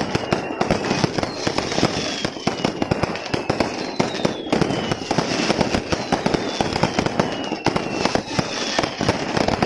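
Aerial fireworks display going off in a dense, continuous barrage of bangs and crackles. High whistles that fall in pitch recur about once a second or so through it.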